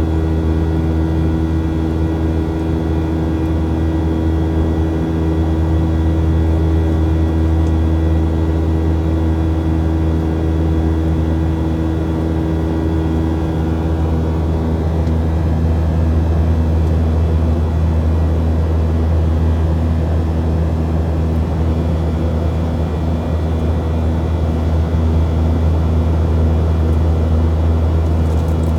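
Aircraft engine drone heard from inside the cabin in flight: a steady low hum with several even tones above it, holding level throughout.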